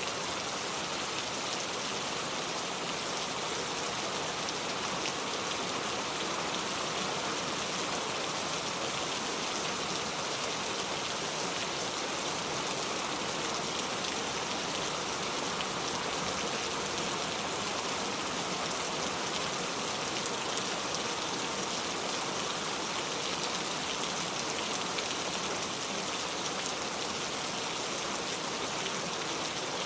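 Steady rain falling, a dense, even hiss of drops that holds constant throughout.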